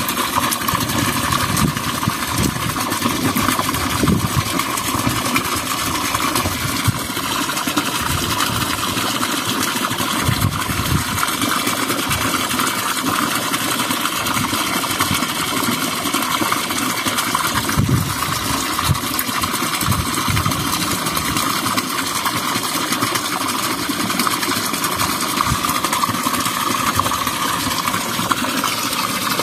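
Small petrol engine of an irrigation water pump running steadily at a constant speed, with a hissing, water-like noise over it.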